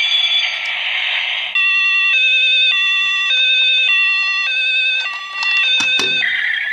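Toy fire engine's electronic siren, set off by pressing its biggest button. It opens with a buzzy steady tone, then about a second and a half in changes to a two-tone hi-lo siren that swaps pitch roughly every half second. A knock sounds near the end, and the siren stops abruptly.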